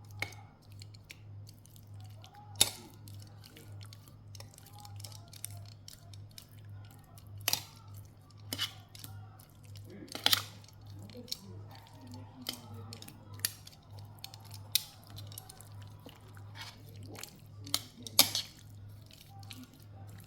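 Kitchen food-prep handling sounds: scattered sharp clicks and knocks of utensils and containers at irregular intervals, a few much louder than the rest, over a steady low hum.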